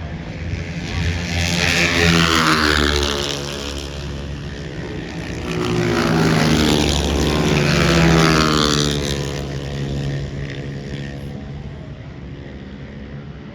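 Racing engines passing by twice, one about two seconds in and another through the middle, each swelling loud and then dropping in pitch as it goes past.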